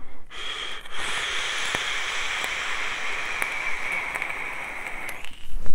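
A long draw on an e-cigarette's dripping atomizer: air hisses steadily through the airflow holes over the heated coil for about five seconds, with a few faint crackles. Near the end, loud gusts of breath hit the microphone as the vapour is blown out.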